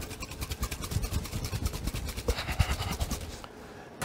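Stainless-steel cream whipper bottle, charged with two gas capsules, shaken hard: liquid chocolate mousse mix sloshing inside in a rapid, even rhythm, stopping a little after three seconds in.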